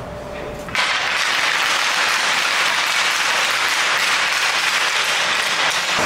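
Audience applause, starting suddenly about a second in and holding steady.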